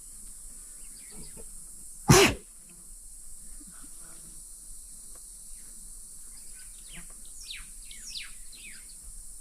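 A lioness sneezes once: a single sharp, loud burst about two seconds in.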